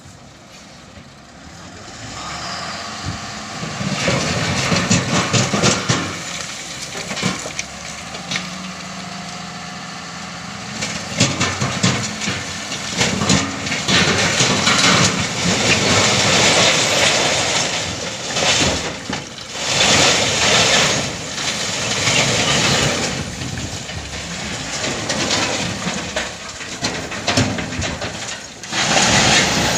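Heavy diesel construction machinery working: the engine runs and revs under load, with repeated metallic clanking and rattling throughout.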